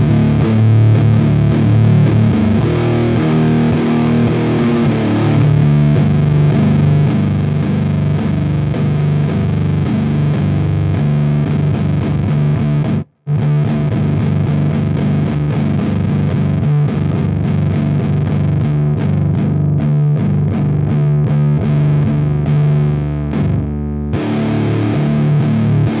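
Heavily distorted electric guitar played through a JFET amp-emulator overdrive pedal (a DIY Model T copy), chugging low, sustained chords. The sound cuts out for a split second about halfway through.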